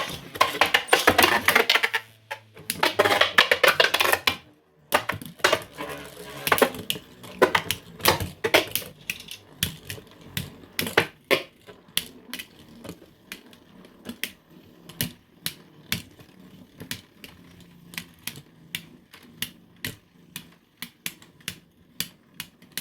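3D-printed Beyblade tops launched into a plastic stadium, with a rasping launch and spin noise for about the first four seconds. Then many sharp clicks and knocks as the tops clash with each other and the stadium walls, the hits growing sparser and weaker as the tops lose spin.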